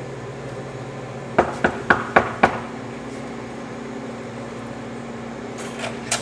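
Knuckles knocking on a door: five quick, loud raps about a second in, then two lighter knocks near the end, over a steady low hum.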